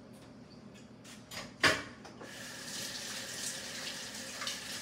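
A few light clicks and one sharp clack, like a metal fork striking a metal sheet pan, then from about two seconds in a steady rush of water running from a tap that keeps going.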